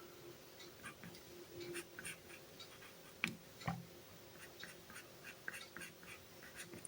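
Faint scratching and light tapping of a drawing tool ruling lines, with a sharper click and a knock a little past three seconds in.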